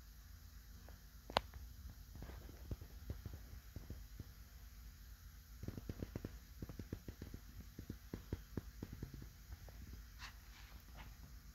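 Faint steady low hum with a single sharp click about a second in, then a run of small ticks and taps in the middle.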